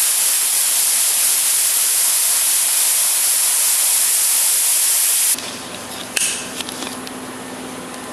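A loud, steady hiss of pressurised gas from a nozzle, cutting off abruptly about five seconds in. Afterwards a faint steady hum and a few light clicks remain.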